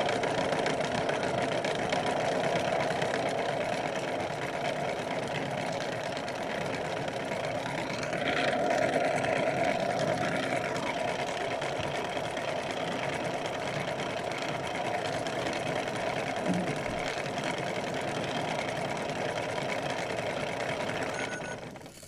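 Kid Connection toy washing machine's small electric motor spinning the drum on its spin cycle, a steady whir. It swells a little about a third of the way in and cuts off just before the end.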